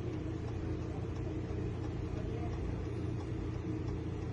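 Steady low mechanical hum with an even background rumble, unchanging throughout.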